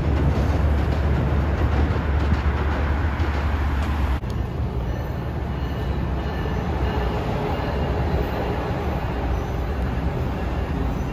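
A train running past at trackside with a loud, steady rumble of wheels and rail noise. About four seconds in the sound changes abruptly to a somewhat quieter passing train with faint steady whines over the wheel noise.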